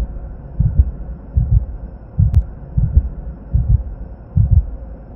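Deep bass thumps in close pairs like a heartbeat, about one pair every three-quarters of a second, over a faint steady drone: a heartbeat-style pulse in an intro soundtrack.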